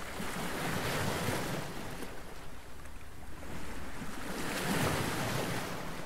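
Steady rush of wind on the microphone mixed with the wash of the sea aboard a catamaran under way, swelling gently twice.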